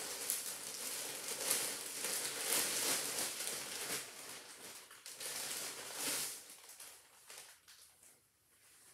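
Plastic clothing bags crinkling and rustling as garments are unwrapped and pulled out, dying away in the last couple of seconds.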